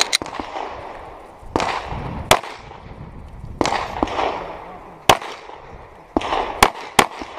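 Semi-automatic pistol shots fired close by in a string, about eight or nine at uneven spacing, some under a second apart and others after a pause of a second or more, each with a short echo trailing off.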